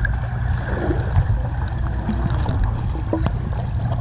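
Muffled underwater noise picked up by a submerged camera in a swimming pool: a steady low rumble of churning water with a few faint clicks and bubbles from swimmers moving close by.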